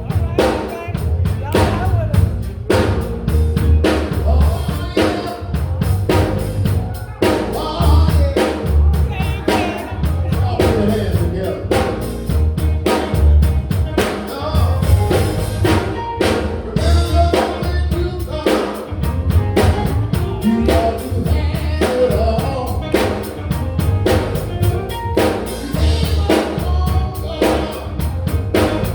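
Gospel vocal group singing with a live band, the drum kit keeping a steady beat over a strong bass line.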